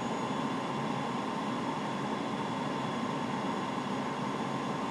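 Steady flight-deck background noise during an approach: an even hiss with a faint steady tone running through it.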